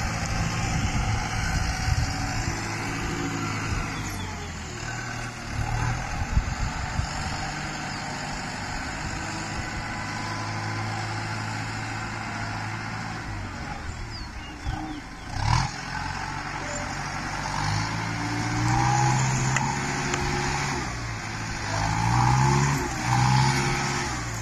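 Farm tractor engine running steadily, with a short sharp knock about fifteen seconds in. In the last few seconds the engine's pitch rises and falls repeatedly.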